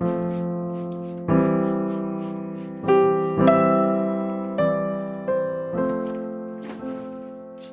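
Background music: a slow, gentle piano piece, with notes and chords struck about once a second, each left to ring and fade before the next.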